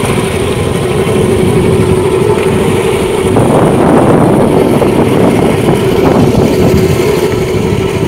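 Fishing boat's engine idling steadily, a constant hum with one held tone. About three and a half seconds in, a rougher rush of noise swells over it for a second or so.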